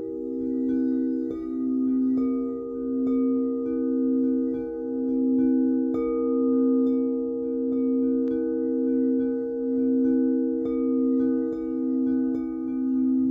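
Singing bowls struck again and again, about once a second, several low tones ringing on together with a slow wavering in loudness.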